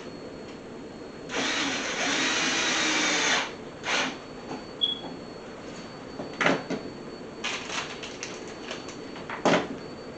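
Power drill running for about two seconds, then briefly again; this is followed by several short knocks and clicks of tool handling.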